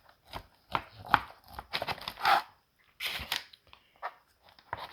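A knife cutting down between the bones of a rack of smoked pork ribs on butcher paper: a run of short, irregular crackles and scrapes as the blade goes through the crust and the paper rustles.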